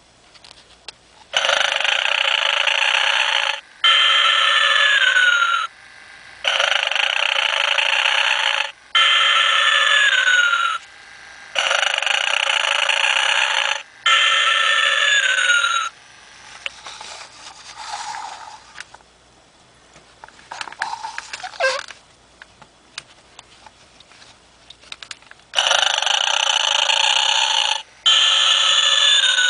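Vintage animated Santa Claus decoration making its snoring sound: a rasping in-breath followed by a whistling out-breath that falls in pitch, repeating about every five seconds, four times. A quieter stretch of faint rustling and a few clicks follows, and the snore cycle starts again near the end.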